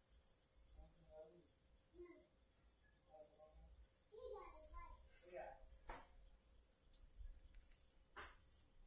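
Chorus of crickets chirping in a steady, high-pitched pulsing trill. Faint distant voices come and go, and there is a single click about six seconds in.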